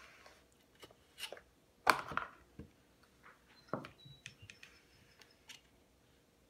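A scatter of light clicks and knocks from small objects being handled, the loudest a sharp knock about two seconds in, followed by smaller ticks.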